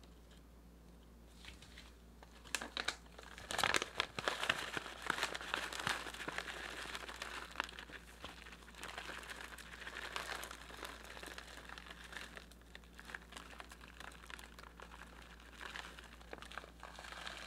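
Crinkling of a plastic bag of crushed Oreo cookie crumbs as it is handled and tipped, with the crumbs scattering onto a cream layer. It starts about a second and a half in, is loudest with sharp crackles a few seconds in, then goes on more softly.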